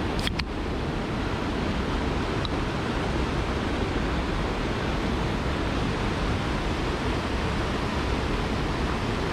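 Steady rushing noise of water from heavy rain and a swollen, fast-running river. A couple of faint sharp clicks just after the start.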